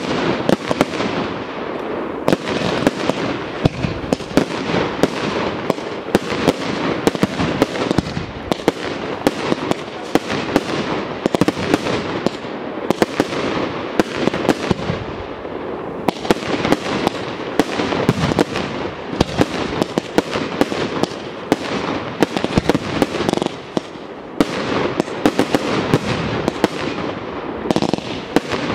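Fireworks display: aerial shells launching and bursting in quick succession, many sharp bangs a second over a continuous rushing noise, with a short lull about three-quarters of the way through.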